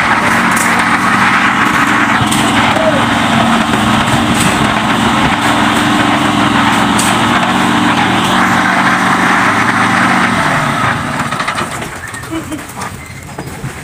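Small engine of construction machinery running steadily during a concrete pour, then dying away about eleven seconds in.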